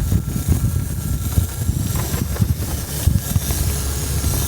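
Strong storm wind buffeting the microphone, a heavy, uneven low rumble that rises and falls with the gusts.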